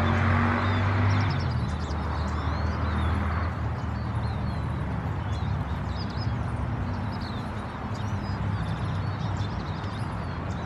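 Small birds calling with many short, high chirps, scattered throughout. Under them runs a steady low hum, louder in the first second and a half.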